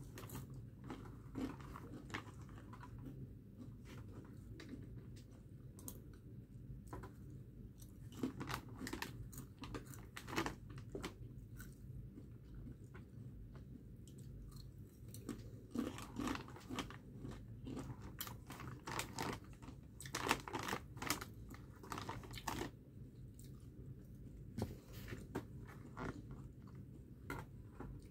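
Crisp snack chips being bitten and chewed close to the microphone: irregular clusters of sharp crunches, over a low steady hum.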